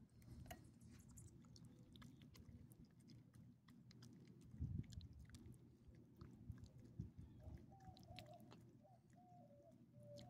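Small dog chewing and licking up soft pieces of hot dog: faint, scattered wet smacks and clicks of its mouth. About halfway there is one low thump, and near the end a faint wavering whistle.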